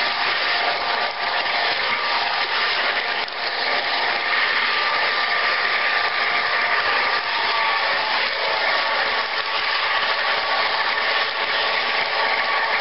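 Model train running fast along its track, heard from a camera riding on one of its cars: a steady whirring rumble of wheels on the rails with a constant faint whine.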